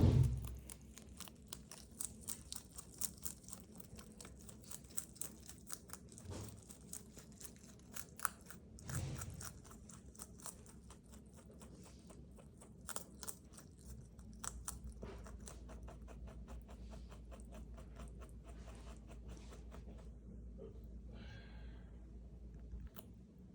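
A rabbit chewing crisp bok choy: a rapid run of small crunches that thins out in the second half. A faint low hum comes in about halfway and stops shortly before the end.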